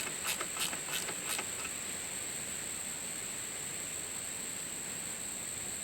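A hand tool clicking about three times a second while the alternator belt is being tightened; the clicks stop after about a second and a half. Then only a steady high-pitched hiss remains.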